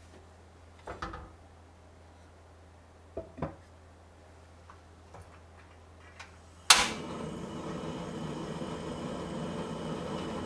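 A few light knocks as the wooden lid is settled on a hagama rice pot, then near the two-thirds mark a portable gas stove lights with one sharp click and its burner runs on with a steady hissing rush under the pot.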